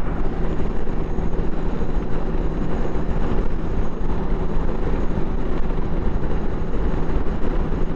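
Motorcycle engine running steadily at highway cruising speed, with wind and road noise, heard from the rider's own microphone.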